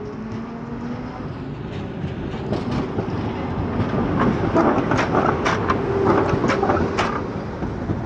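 Konstal 13N tram passing close by on curved track through a junction: a rising rumble with a run of sharp wheel knocks over the rail joints and points, loudest in the middle seconds.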